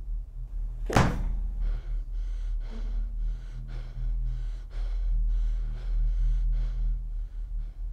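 One sharp, loud hit about a second in, over a steady low drone, followed by a man's quick, ragged gasping breaths, about two a second, as he wakes with a start.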